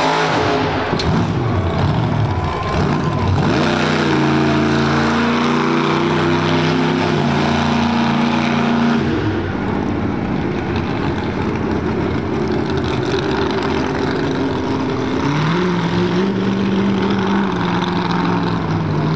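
Monster truck engine running loud, revving up and down repeatedly. About nine seconds in it drops to a lower, rougher note, then revs up and holds for a few seconds near the end.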